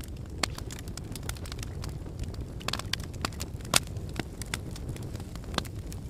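Wood fire in a fire pit burning and crackling: frequent sharp pops and snaps over a steady low rumble of flames, with one louder pop a little past the middle.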